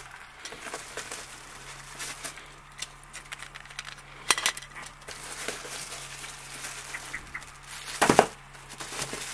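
Packaging being handled inside a cardboard box: plastic wrapping rustling and cardboard and polystyrene scraping and knocking, in scattered small clicks with two louder rustles, one about four seconds in and one near the end. A steady low hum runs underneath.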